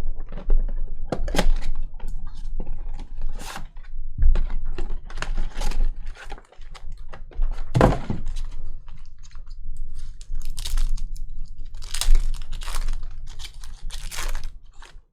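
Irregular taps, clicks and thunks of hands at a table: baseball card packs being opened and the cards handled, with a few heavier knocks.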